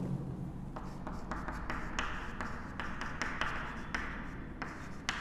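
Chalk writing on a chalkboard: a run of short scratches and taps as letters are formed.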